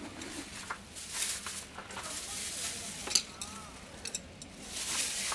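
Camp gear and utensils being handled on a table: rustling, scraping and light clinks, with a short wavering chirp about three seconds in.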